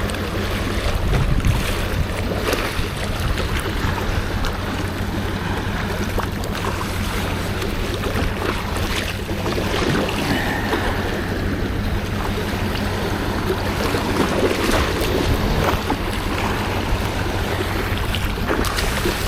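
Steady wind and water noise at the water's edge, with wind on the microphone and a low steady hum underneath.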